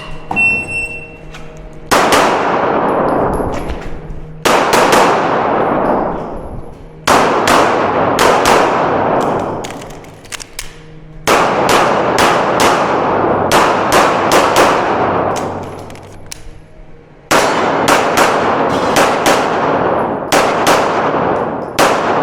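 Shot timer's start beep, then a handgun fired in rapid strings of shots for about twenty seconds. Each string trails off in a long, echoing tail.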